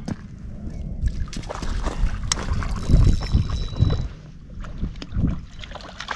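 A hooked rainbow trout splashing at the surface of shallow water at the shoreline as it is drawn in and netted: irregular splashes, loudest about three seconds in, with a last one a little after five seconds.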